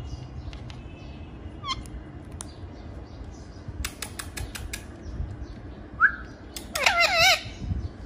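Indian ringneck parakeet calling: a short falling chirp, then a rising note and, loudest, a brief warbling whistle with a wavering pitch near the end. A quick run of sharp taps comes in the middle.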